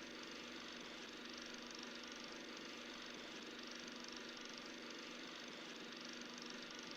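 Vintage film projector running, its mechanism making a steady, fast, even clatter.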